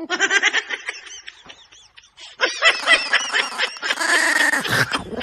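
Chihuahua growling and snarling at a hand reaching toward its food: food-guarding. It comes in two runs, the second, from about halfway, louder.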